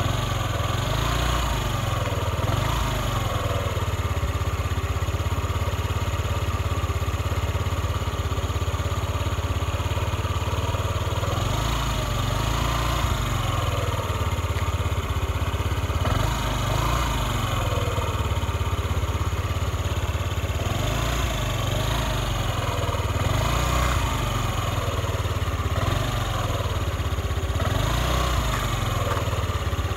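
Honda Scoopy moped's engine idling steadily, its throttle blipped about eight times, the pitch rising and dropping back each time.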